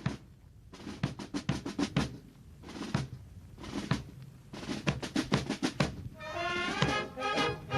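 Band music: repeated snare drum rolls and beats, then brass instruments come in with held notes about six seconds in.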